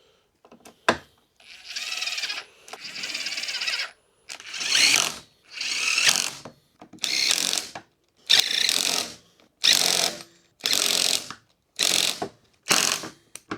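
Hand ratchet with a hex bit tightening the pedal bracket bolts on an Inmotion V9 electric unicycle until snug. It makes about a dozen clicking back-and-forth strokes, each a second or less, and the strokes get shorter toward the end.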